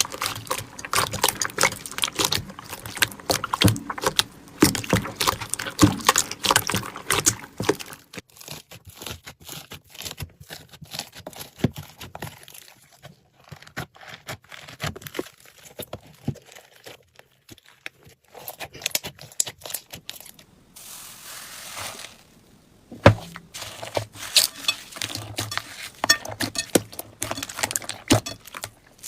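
Slime being squeezed and worked by hand: a dense run of small sticky clicks and crackles. It thins out to sparse, quieter pops for a long stretch in the middle, then turns busy again after a sharp click near the end.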